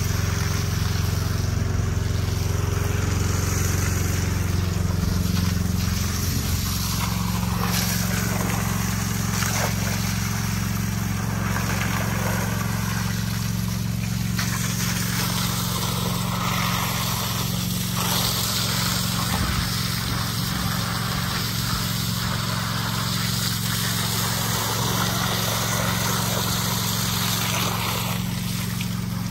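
An engine running steadily, a low hum whose pitch shifts slightly about six seconds in.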